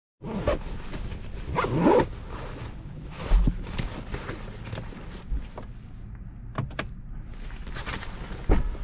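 A car seatbelt is unbuckled and guided back toward its retractor, with clicks and fabric rustling. Two dull thumps come a few seconds apart, the louder near the end.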